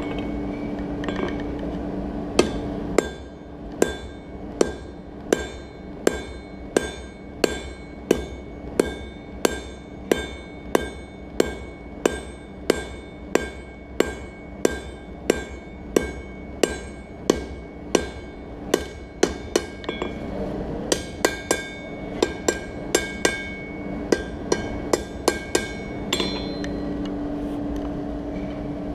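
Blacksmith's hand hammer striking hot steel on an anvil, a steady beat of about one and a half blows a second, each blow leaving a ringing tone from the anvil; after about twenty seconds the blows come quicker, often in pairs. A steady hum is heard before the hammering starts and again after it stops.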